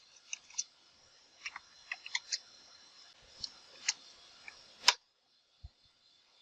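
Computer keyboard keystrokes typed at an uneven pace, with one louder click about five seconds in.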